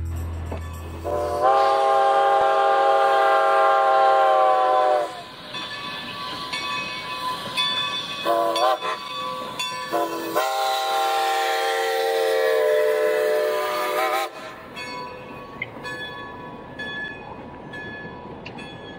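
A train sounds its horn: two long blasts of several tones together, each three to four seconds, with a brief blast between them.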